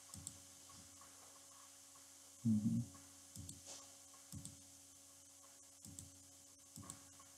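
Computer mouse clicking faintly, a handful of separate clicks over a low steady hum, with one short, louder low bump about two and a half seconds in.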